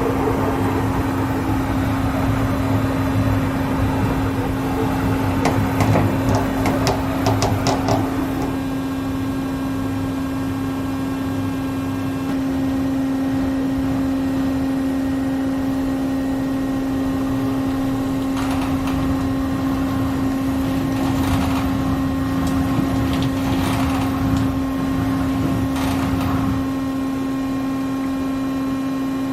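Doosan Puma MX2500ST CNC mill-turn center running, with a steady whine and hum throughout. A quick run of sharp clicks comes about a quarter of the way in, and several bursts of noise come in the second half.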